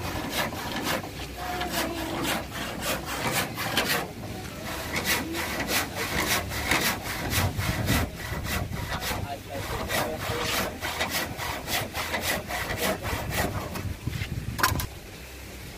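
Hand saw cutting through a wooden plank in quick back-and-forth strokes, about three a second, with a few short pauses; a sharper knock near the end, after which the sawing stops.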